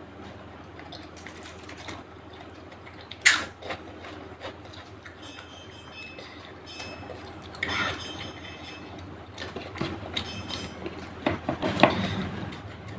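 Close-miked eating sounds from a meal of chicken curry and rice: soft wet chewing and mixing of the food, with a sharp crack about three seconds in and a few smaller clicks later.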